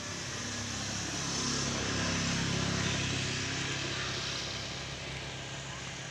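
Bajaj NS200 single-cylinder engine idling steadily through a short aftermarket exhaust. A louder swell of broader noise rises and fades around the middle while the idle pitch stays level.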